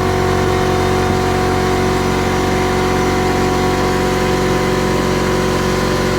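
Compressed-air rig for a Central Pneumatic 1/8" mini air die grinder running steadily: a constant mechanical drone with several steady tones over a low pulsing hum.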